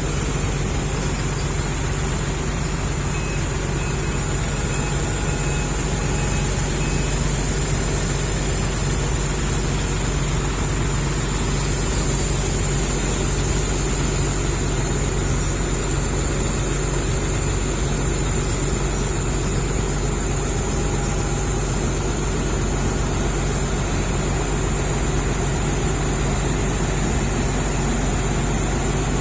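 Heavy diesel engine running steadily at a constant speed, a low even hum with no revving.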